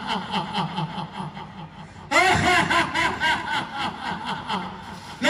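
A man laughing in a quick run of 'ha-ha' pulses, about five a second, that tails off and then starts again suddenly and louder about two seconds in.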